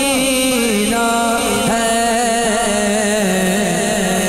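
A man singing a naat, an Urdu devotional song in praise of the Prophet, into a microphone, with long held notes that waver and bend in ornamented turns.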